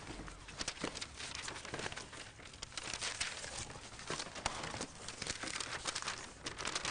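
Paper and cardboard record sleeves rustling and crinkling as several people handle them and pull papers out, with many small clicks and scrapes.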